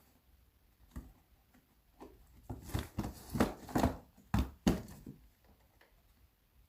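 A cardboard product box being opened by hand: a single click, then a quick run of short sharp scraping and rustling noises as the packaging is worked open.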